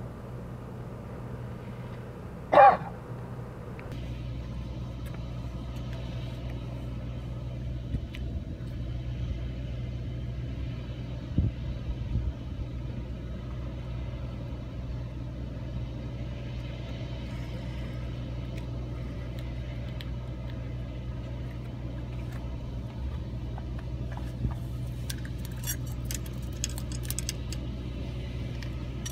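Steady low outdoor rumble, with a brief loud squeal about two and a half seconds in. Light metallic clicks near the end as a hook is worked with pliers over the tackle.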